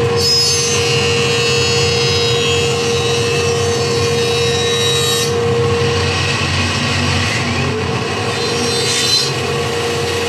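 Woodworking jointer running as a board is fed across its cutterhead: a loud, steady cutting whine over the motor hum for about five seconds, then the machine running with lighter cutting noise and a short whine again near the end.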